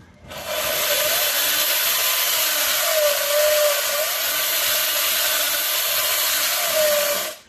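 220 V electric chainsaw cutting into a masonry block. The motor starts about a third of a second in and runs loud and steady through the cut, its pitch sagging briefly twice as it loads up, then stops abruptly near the end.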